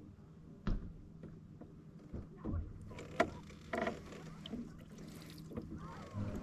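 Canoe being paddled: paddle strokes in the water and sharp knocks of the paddle against the hull, the loudest a little past the middle, over a steady low hum.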